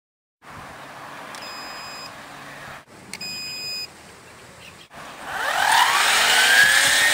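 Two short electronic beeps from the MORI EBC-240 cordless brush cutter as it is switched on. Then its electric motor and nylon trimmer head spin up with a rising whine, which grows loud about five seconds in.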